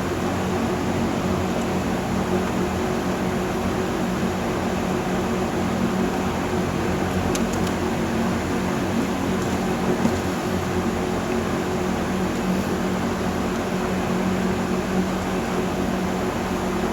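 Steady whirring fan hum with a constant low drone underneath, unchanging throughout, with a couple of faint ticks about seven seconds in.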